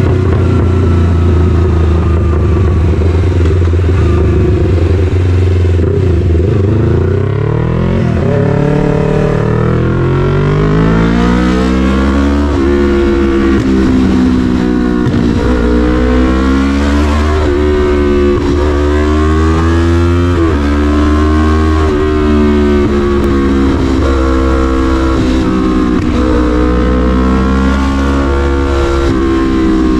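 Yamaha MT-03's parallel-twin engine through an SC-Project full exhaust, heard from the rider's seat: a steady low running note at first, then from about eight seconds in the revs climb and go on rising and falling again and again as the bike accelerates and backs off.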